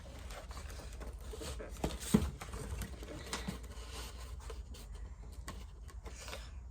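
Light rustling and small taps as sheets of construction paper are handled against a cardboard shoebox on a tabletop, with a sharper knock about two seconds in.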